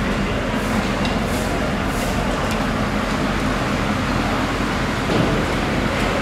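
A steady mechanical rumble and hum with a few faint clicks.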